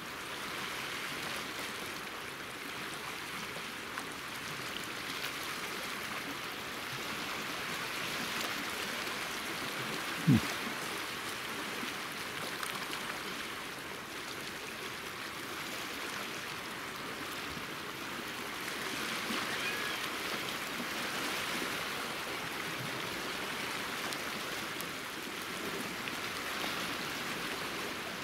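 Small sea waves washing and lapping over rocks at the shoreline: a steady rushing wash that swells a little now and then. A single brief low thump about ten seconds in.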